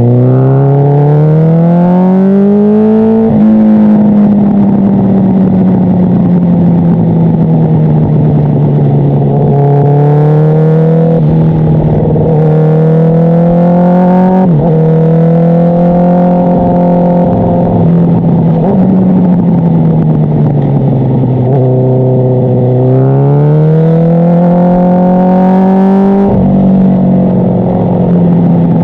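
Honda CBR1000RR inline-four engine through an aftermarket exhaust with an enlarged mid-pipe and silencer, pulling and shifting gears: the pitch climbs, drops sharply at upshifts about three seconds in, around the middle and near the end, and eases off and builds again in between.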